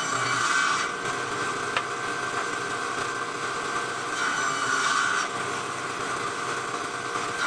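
Circular saw running and cutting through wood, with a steady whine that swells louder as the blade bites, strongest about four to five seconds in.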